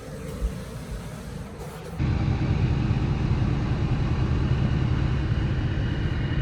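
A vehicle engine running steadily, a loud low rumble that starts abruptly about two seconds in. Before it there is quieter background noise with a couple of soft knocks.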